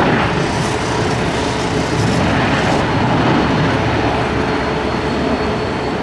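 Airbus A321 airliner's jet engines in a steady, loud roar as it rolls out after landing, spoilers up, most likely reverse thrust slowing it down, easing slightly. A faint steady tone runs underneath.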